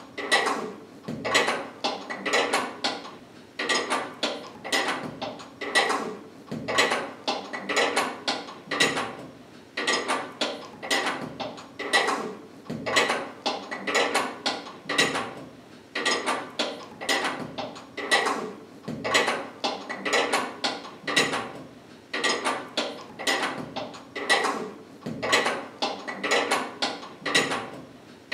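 Hand carpet weaving: a metal beater comb knocking down the knotted rows on a loom. The strikes come in quick clusters of a few knocks, about one cluster a second, in a steady rhythm.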